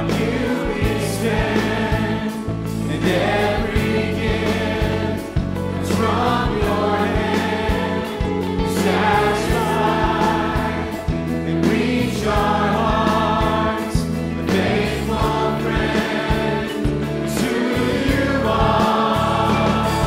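Mixed choir singing a gospel song, backed by a band of piano, drums, guitar and bass, with a steady beat.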